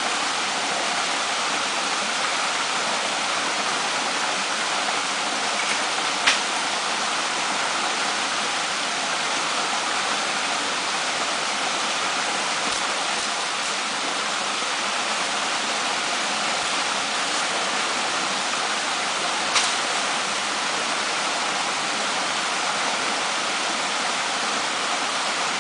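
Steady rushing of a waterfall pouring into its pool, with two brief sharp clicks, one about six seconds in and one near twenty seconds.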